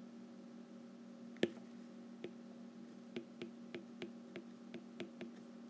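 Stylus tip clicking against a tablet's glass screen during handwriting: one sharper click about a second and a half in, then light clicks about three a second, over a faint steady hum.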